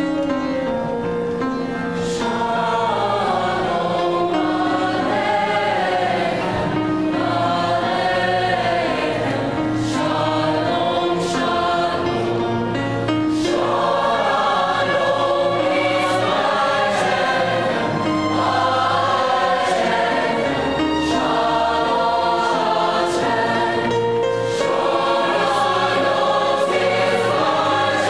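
A large mixed choir of men's and women's voices singing in harmony.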